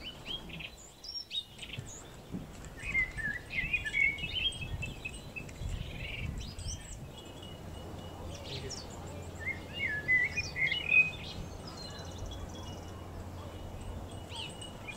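Birds chirping in quick twittering bursts, twice, over a low background rumble.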